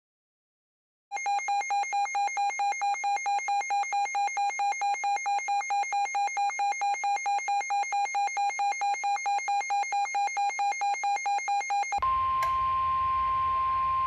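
NOAA Weather Radio alert tones: a rapid, evenly pulsing electronic beep for about eleven seconds. Near the end it gives way to a steady single-pitch warning alarm tone over radio static, signalling an incoming emergency alert.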